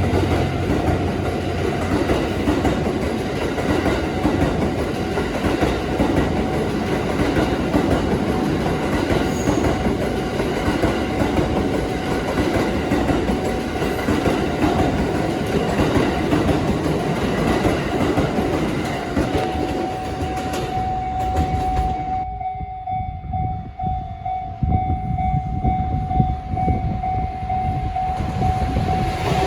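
A train passing over a level crossing, with wheels clattering over the rail joints, for about twenty seconds. The rumble then drops away as the train clears, leaving the crossing's steady warning tone.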